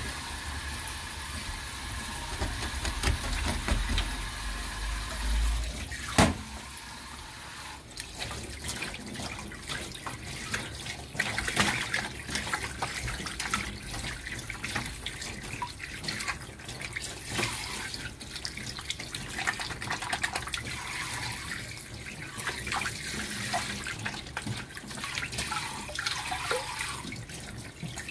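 A low hum that stops with a sharp click about six seconds in, then water running from a kitchen tap into a sink, with splashing and many small knocks.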